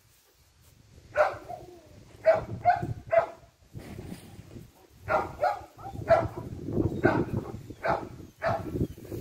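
Dog barking in short, sharp barks, about ten of them in two bunches with a brief pause between.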